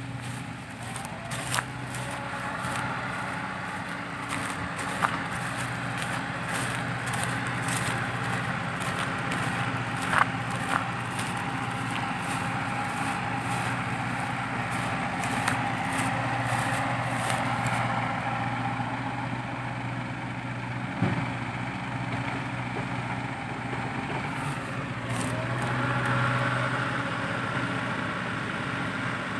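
Diesel engines of a working excavator and dump truck running steadily, with scattered knocks and clicks. The engine note swells near the end.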